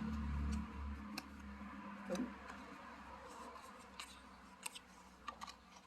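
Faint scattered clicks and rustles of a cardboard tuck box and tarot cards being handled, over a low rumble that fades out during the first second or two.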